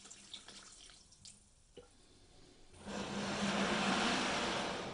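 White vinegar pouring from a jug into a plastic tub over a rusty steel hammer head, filling it for a rust-removing soak. A few faint drips and ticks at first, then a loud steady splashing rush for the last two seconds.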